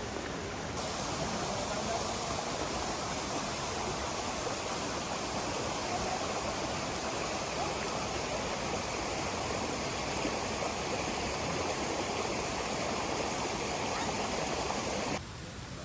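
Steady rushing of flowing water, an even hiss without rhythm that starts about a second in and cuts off just before the end.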